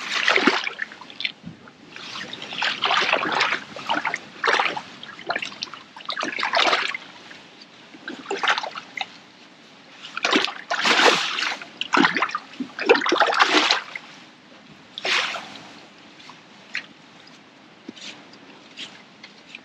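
Lake water splashing and sloshing close at hand in irregular bursts, loudest over the first fourteen seconds, then dying down to faint trickles and drips.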